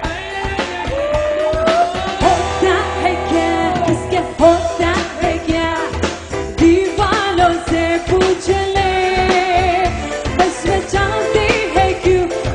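Live band playing a song: a singer's voice slides and bends in pitch over a steady drum beat and accompanying instruments.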